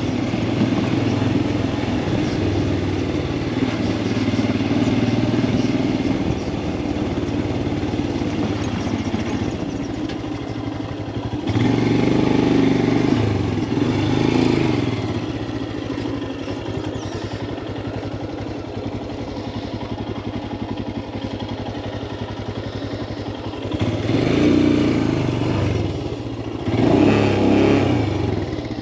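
Royal Enfield Himalayan 411's single-cylinder engine running under way, with road noise; the engine note rises and falls twice as the rider accelerates and eases off, about halfway through and again near the end.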